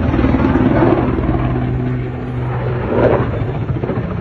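Low steady drone from the engines and propellers of a twin-turboprop airliner, an ATR 72, as it falls, heard under wind noise; the drone fades about two and a half seconds in.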